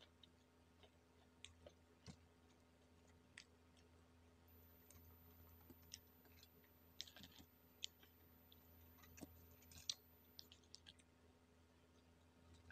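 Faint, scattered clicks and crunches of crispy fried chicken being pulled apart by fingers and chewed, a few sharper ones in the second half, over a low steady hum.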